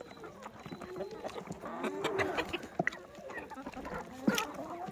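Domestic hens clucking in short, repeated calls as they are fed. A single sharp knock comes near the end.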